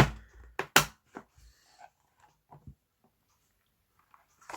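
A few sharp clicks and knocks from a small accessory case being handled, the loudest in the first second or so, then fading to quiet.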